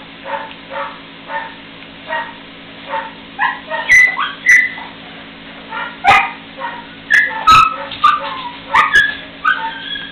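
Three-week-old puppies squeaking and yipping as they wrestle in play: a quick run of short, high little calls, about two a second. From about four seconds in the calls get louder, with a few sharp yelps.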